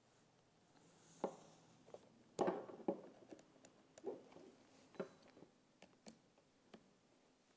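Irregular light clicks and knocks of small objects being handled, with a cluster of louder knocks about two and a half seconds in.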